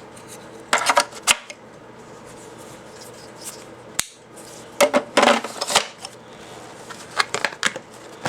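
AR-7 survival rifle's barrel, receiver and magazine clicking and knocking as they are packed into its hollow stock. The handling comes in clusters of sharp clicks, around a second in, in the middle and again near the end, with one crisp click at about four seconds.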